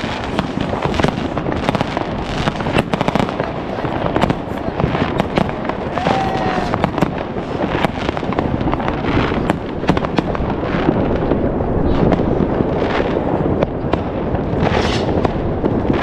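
Dense New Year's Eve fireworks: firecrackers, rockets and fireworks batteries going off together. Many sharp bangs ride over a constant crackle, with voices underneath.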